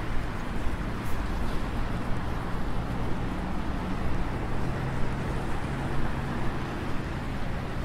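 City street traffic noise with the steady low hum of a city bus engine, which becomes clearer a few seconds in.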